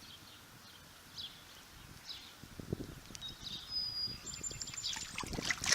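Birds chirping faintly: short high calls sliding downward about once a second, then a couple of thin steady high whistles in the second half, over light rustling and handling noise.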